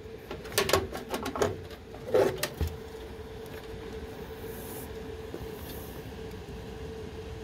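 Hands handling pneumatic control tubing and its brass fitting on a pneumatic valve actuator: several clicks and knocks in the first two or three seconds, then brief faint hisses of compressed air near the end. A steady hum from the running fan coil unit lies underneath.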